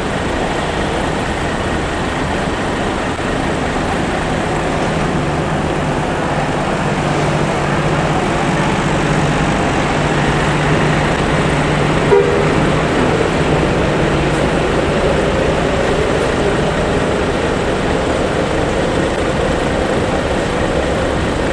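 Steady motor-vehicle engine and road noise, with a brief click about twelve seconds in.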